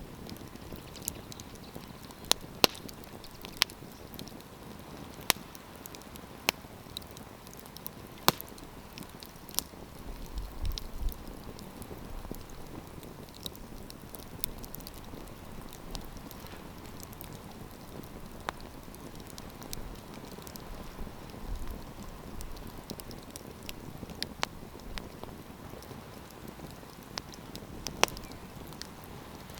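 Wood campfire crackling: scattered sharp pops and snaps at irregular intervals over a steady low hiss, with a brief low rumble about ten seconds in.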